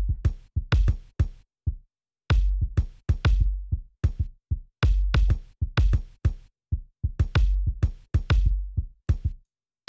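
A recorded kick drum played back solo and dry, with no EQ on it: a busy, uneven pattern of deep thuds, several a second, each with a sharp click at the start.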